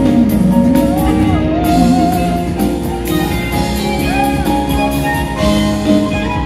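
Live gospel group singing over sustained chords from a Roland electronic keyboard, a lead voice bending and sliding through long held notes.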